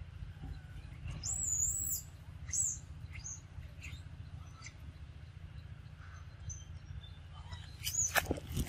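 A bird calling: a high call that rises and falls, lasting under a second, about a second in, then two shorter calls, over a steady low hum. A few sharp clicks near the end.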